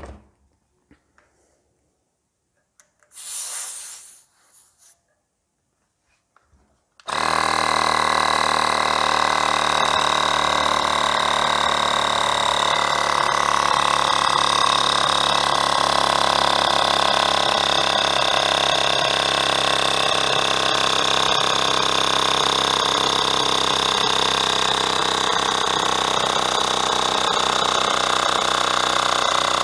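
A short hiss of air about three seconds in, then a Ferrex cordless mini air compressor starts about seven seconds in and runs steadily, pumping up a bicycle's rear tyre towards 48 psi. Its motor slows a little and its tone changes as the tyre pressure builds.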